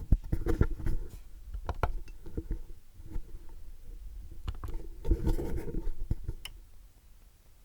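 Handling noise: irregular knocks, scrapes and rubbing, loudest about a second in and again around five seconds, dying down near the end.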